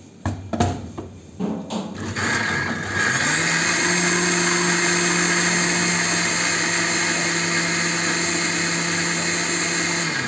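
Electric mixer grinder grinding cooked tomato gravy into a fine paste. It opens with a few knocks as the steel jar is seated, then the motor starts about two seconds in, rises quickly to speed and runs at a steady pitch, cutting off near the end.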